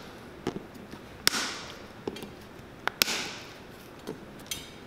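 Nail nippers snapping off old nails in a boot's heel seat: two sharp cracks about a second and a half apart, with a few lighter clicks of the tool between them. The nails are being clipped down so that new leather can be laid over them.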